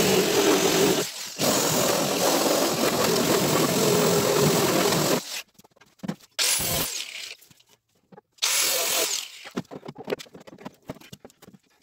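Electric drill spinning a cylindrical abrasive attachment against the sealant, paint and rusty steel along the lower edge of a car door, stripping it to bare metal. It runs for about five seconds with a short dip about a second in, then runs again in two short bursts. Fainter scraping and clicks follow near the end.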